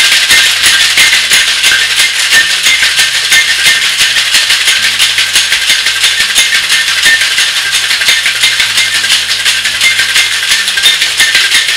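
Ice rattling inside two metal cocktail shaker tins being shaken hard at once, a fast, steady, rhythmic clatter: the cocktail and the mocktail getting their twelve-second shake. Background music plays faintly underneath.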